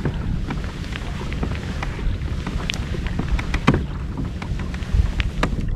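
Wind buffeting the microphone as a steady low rumble, with scattered light clicks and knocks throughout.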